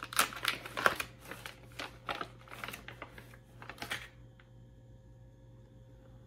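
Plastic soft-bait packaging crinkling and crackling as it is handled and opened, a rapid run of short rustles that stops about four seconds in, leaving a faint steady hum.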